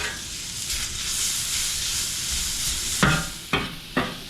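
Chopped ribeye steak sizzling on a Blackstone flat-top griddle, a steady hiss, then metal spatulas striking and scraping the griddle three times near the end as the meat is tossed around.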